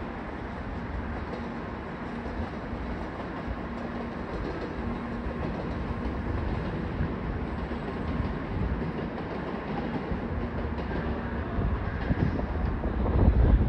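N700S Shinkansen train running away down the line, a steady rumble of the train on the track. Gusts of wind buffet the microphone near the end.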